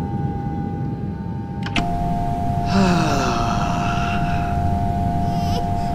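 Airliner cabin drone: a steady low rumble of the engines with a constant whine that drops slightly in pitch just under two seconds in. About three seconds in there is a short breathy sound, like a sigh.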